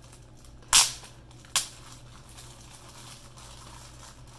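Clear cellophane wrapper on a pack of papers crackling sharply twice, the first louder and longer, as its sticker seal is peeled and the plastic is pulled open.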